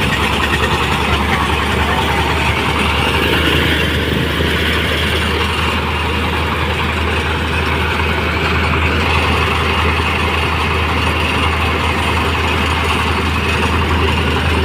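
Motorized rice thresher running at a steady speed: an unchanging engine drone under a dense, even noise.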